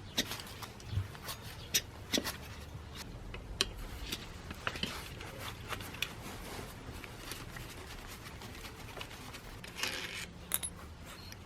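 Hands working on a brush cutter's parts with tools: scattered sharp clicks and light knocks, with a short scrape about ten seconds in, over a low steady hum.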